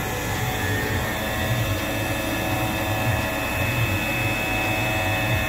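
Tormach 1100M CNC mill running and cutting a billet aluminium cylinder-head insert: a steady high spindle whine over a rough, churning cutting noise.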